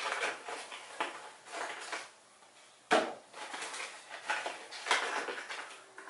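Rustling and light clattering as a throttle body rebuild kit's gaskets and packaging are sorted through by hand, with a sharp click about three seconds in and another near five seconds.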